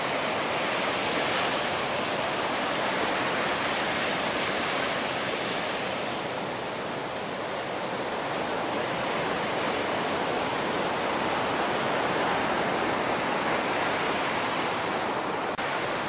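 Ocean surf breaking and washing up the beach: a steady rush of waves that eases slightly about halfway through, then swells back.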